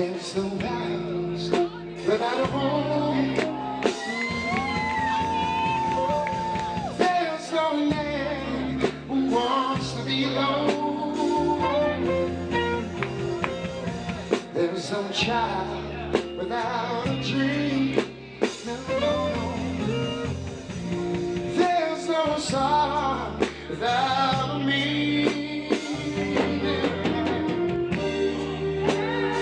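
Male lead singer singing soul music with a live band: drum kit, a steady repeating bass line and guitar behind him.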